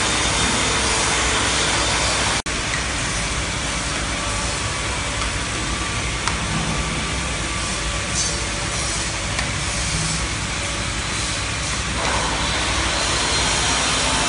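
Steady running noise of a bottle packaging line: a slat conveyor carrying capped plastic jars under an induction cap sealing machine. The sound drops out for an instant about two and a half seconds in.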